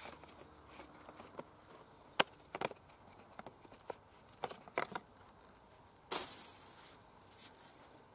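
Scattered light clicks and a short scrape about six seconds in from handling a Fiskars XA23 brush hook and taking off its plastic blade guard.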